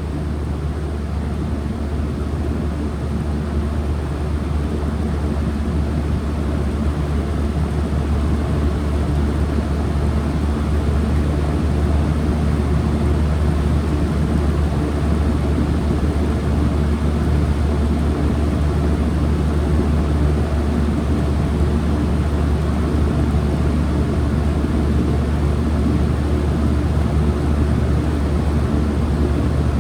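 2016 Lasko Power Plus heat pump running at its first start-up in cool mode: a steady hum with a strong low drone, building slightly louder over the first several seconds and then holding even.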